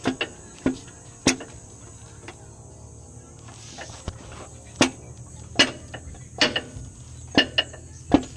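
A dozen or so sharp metal knocks and clinks at irregular intervals, some ringing briefly, as tools and parts are handled on a stripped-down engine.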